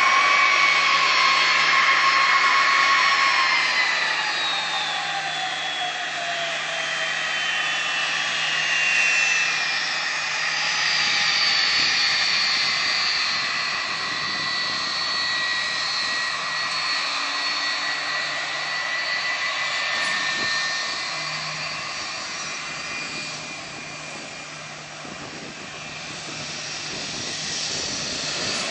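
Jet airliner passing low overhead: a loud rush of engine noise with a high whine that slides down in pitch as it goes by. A high whine then lingers through the middle and the noise eases off towards the end.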